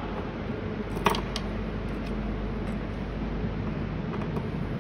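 Small metallic clicks of a screwdriver working the screws out of the IGBT clamp brackets on an inverter's circuit board, the sharpest about a second in with a brief ring and a smaller one just after, over a steady background noise.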